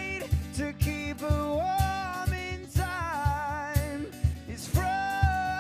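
Live acoustic pop band: a male lead singer holding long sung notes over strummed acoustic guitar and a steady low beat.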